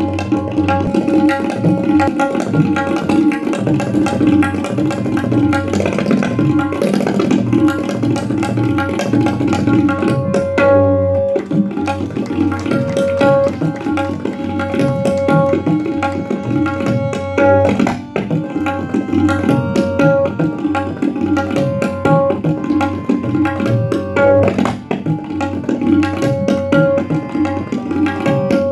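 Tabla played in fast, dense strokes, a steady ringing pitch running under the rapid beats, with a few brief breaks in the pattern.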